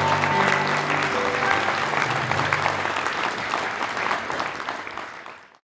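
Audience applauding over the last held chord of the music; the chord dies away about three seconds in and the applause fades out near the end.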